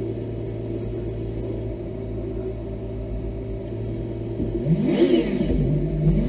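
Off-road vehicle engine running steadily, then revving about 4.5 s in, with the pitch rising and falling and a short burst of noise with it.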